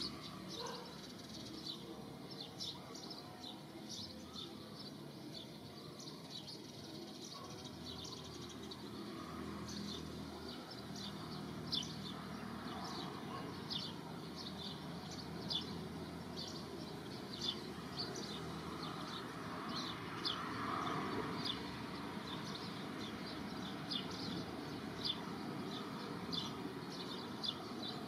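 Birds chirping: short, high, falling chirps every second or so over a steady outdoor hiss.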